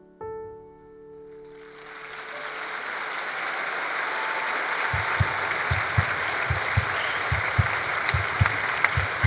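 A last piano note dies away, then audience applause swells and holds. From about five seconds in, low thumps join it in a steady beat, roughly two or three a second.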